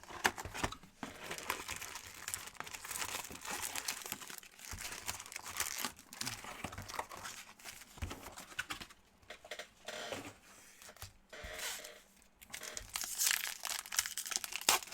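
Plastic wrapping on a box of football trading cards and its packs crinkling and tearing as they are opened by hand, in irregular rustling spells with brief pauses.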